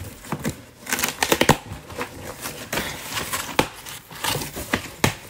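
A cardboard shipping box being handled and its flaps pulled open: scraping and rustling of cardboard with irregular sharp knocks and crackles, a quick cluster of them about a second in.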